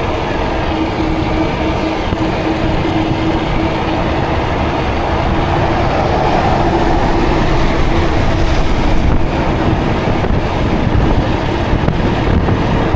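Wind rushing over the microphone and road noise of a Ridstar Q20 electric bike riding at speed, with a steady whine from its motor running underneath. The noise grows slightly louder midway.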